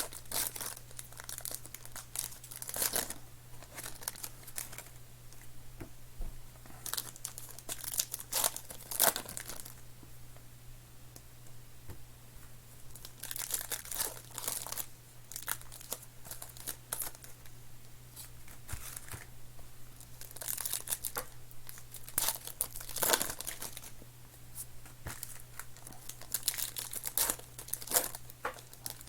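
Plastic and foil wrapping of Panini Contenders football card packs being torn open and crinkled by hand, in irregular bursts of rustling and tearing, over a low steady hum.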